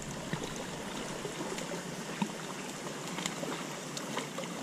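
Faint water splashing and trickling from a hooked mullet being played at the surface close to the bank, with scattered small clicks.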